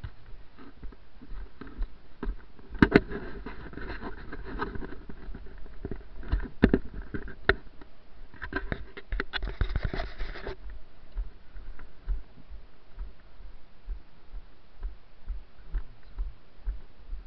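Footsteps on wet grass, heard as regular low thuds through a body-worn camera, with a burst of sharp clicks and rustling from about three to ten seconds in.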